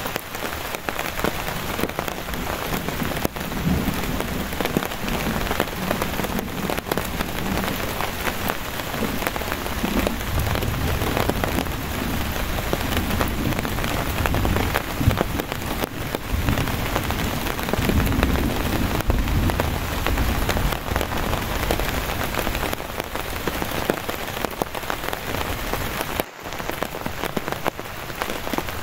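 Heavy, steady rain falling on a tarp shelter and the surrounding pine forest. Low rumbles of distant thunder swell up a few times, strongest around the middle.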